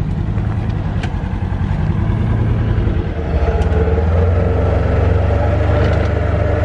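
Engine of a Ranger off-road utility vehicle running as it drives, getting louder about three seconds in as it picks up speed, with a few light clicks and rattles.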